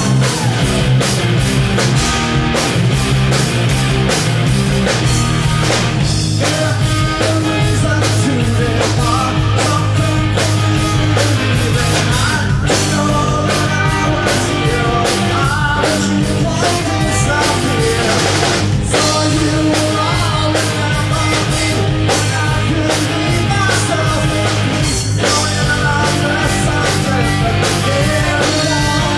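Live rock band playing a song: drum kit, electric bass and guitar at full volume, with singing over it.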